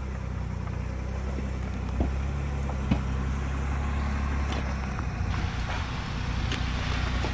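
Ford Bronco's engine running steadily at low revs while crawling over rock, with a couple of short sharp knocks about two and three seconds in.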